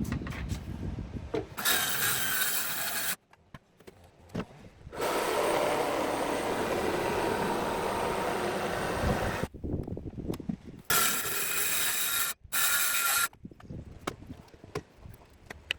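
Circular saw cutting wood in several short stretches, the longest about four seconds in the middle, each starting and stopping abruptly, with small knocks of handling the wood between cuts.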